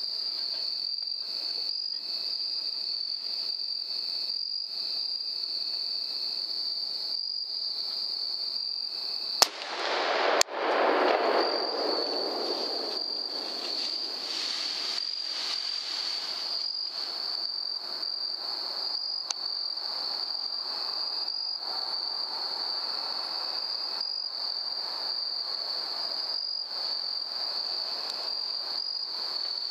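A single rifle shot about nine and a half seconds in, a second sharp crack about a second later, then a few seconds of the shot hog crashing away through brush. Insects trill steadily throughout.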